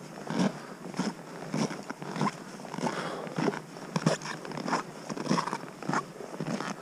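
Footsteps crunching in soft snow at a steady walking pace, about one and a half steps a second.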